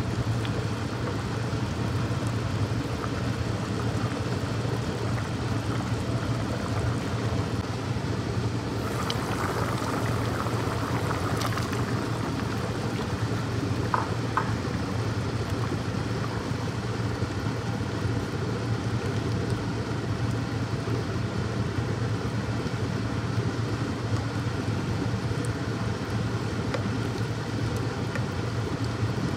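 Steady low hum with a rushing noise over it, even in level throughout. A brief clatter comes around nine to twelve seconds in, and two light clicks about fourteen seconds in.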